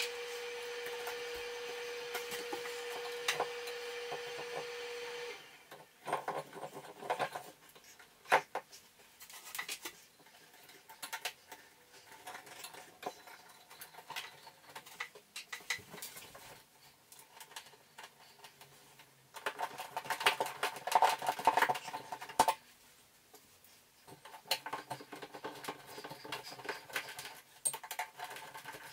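Light clicks, taps and rubbing as a wall light fixture and its wired connections are handled and positioned, with a louder stretch of handling about twenty seconds in. For the first five seconds a steady humming tone runs beneath, then cuts off suddenly.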